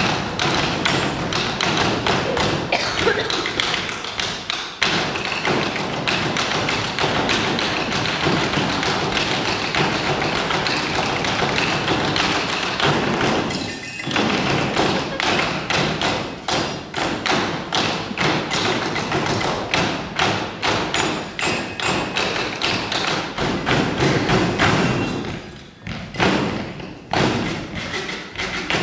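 Pens, markers and hands drumming on a folding table in a fast, dense ensemble rhythm of thumps and taps. The beating thins out briefly about halfway through and again shortly before the end.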